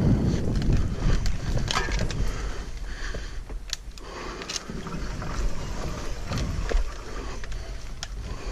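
Specialized Turbo Levo electric mountain bike riding down a dirt trail: tyres rolling over dirt and dry leaves, with frequent knocks and rattles from the bike going over bumps, under a constant low rumble.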